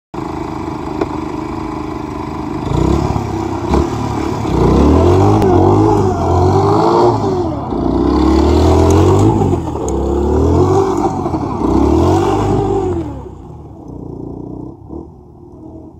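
Honda XR125L's 125 cc single-cylinder four-stroke engine running at idle, then revved about five times, the pitch rising and falling with each rev. Near the end the engine sound drops away sharply as the bike moves off.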